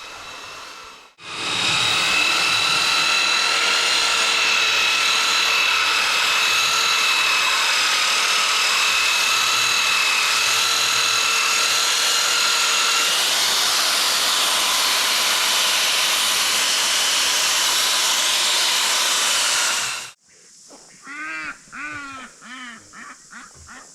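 An electric power tool starts about a second in and runs steadily for about nineteen seconds, a high whine over a loud hiss, then cuts off suddenly. A few short chirps follow near the end.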